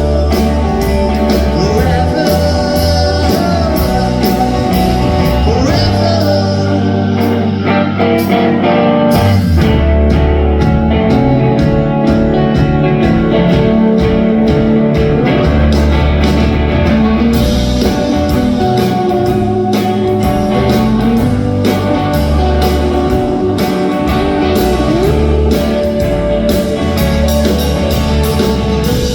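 Live rock music: a band playing with guitar prominent, possibly a mainly instrumental stretch of the song.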